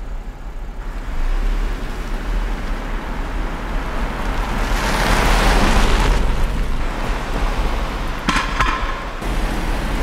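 Night street traffic: a steady low engine and road rumble, with a car passing by about halfway through, its tyre and engine noise swelling and fading. Near the end comes a brief, sharp, higher-pitched squeak.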